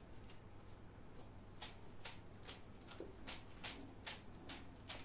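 Oiled fingertips pressing dimples into soft, sticky pide dough: a run of faint, quick sticky clicks, unevenly spaced at about two a second.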